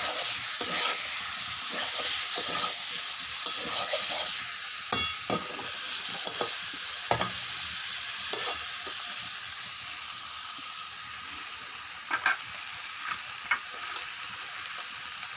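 Chicken pieces sizzling in oil and spice masala as they are sautéed in a pan, with a spatula repeatedly stirring and scraping against the pan. The scrapes and knocks come thicker in the first half and thin out later, over a steady frying hiss.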